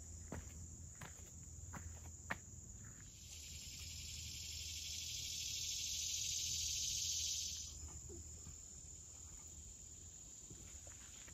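A few footsteps on the trail, then an insect's high-pitched buzz that swells for about four seconds and cuts off suddenly. Faint steps continue after it.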